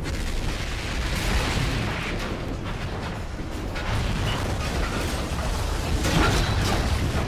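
Film explosion sound effects: a continuous deep rumble of blasts and fire, with debris crashing and clattering in several bursts, the loudest about six seconds in.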